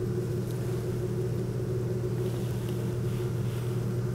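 Steady low hum, with a few faint soft rustles of handling in the middle.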